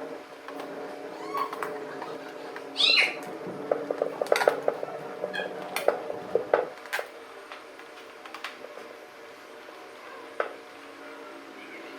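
A cat meows once about three seconds in, the loudest sound here. A quick run of light clicks and taps follows, over steady low background tones.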